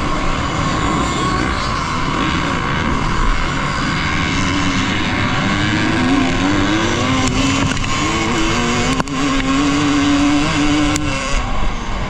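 Off-road racing motorcycle engines running amid a steady rush of noise, one engine's pitch rising and falling through the middle, with a couple of sharp clicks near the end.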